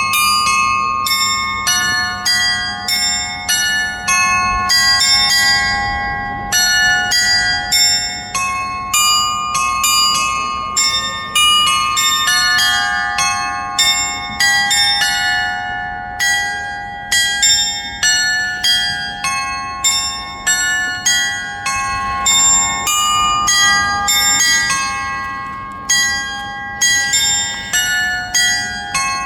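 Church bells ringing: a loud, continuous run of struck bell notes in several different pitches, two to three strikes a second, each note ringing on as the next is struck. It begins abruptly.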